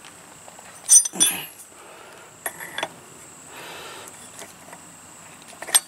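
A steel wrench clinking against the spark plug and rusty cylinder head of a Tecumseh small engine as it is set onto the plug to loosen it. There are a few separate sharp metallic clinks: a loud one about a second in, two near the middle and one near the end.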